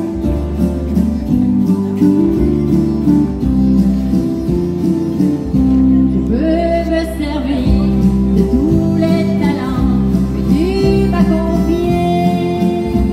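Live country band playing: acoustic guitar strumming with keyboard and harmonica, and a woman's voice starts singing about six seconds in.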